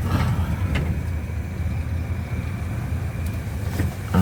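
Hearse ambulance driving along a main road, heard from inside the cabin: a steady low engine and road rumble.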